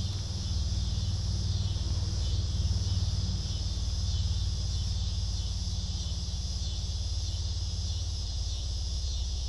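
Steady chorus of insects, an even high-pitched chirring, over a low steady rumble.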